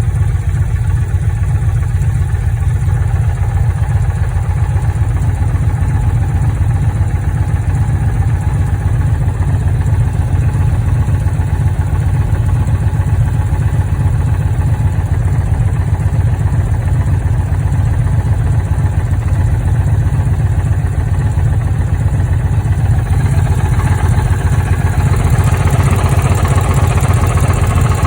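Dodge Challenger engine idling with a steady low pulse, on a car that is throwing misfire codes. A higher-pitched rushing noise grows louder near the end.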